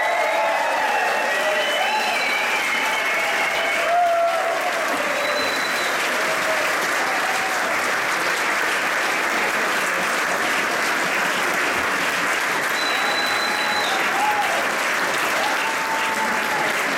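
Large concert audience applauding steadily, with a few cheers over the clapping in the first seconds.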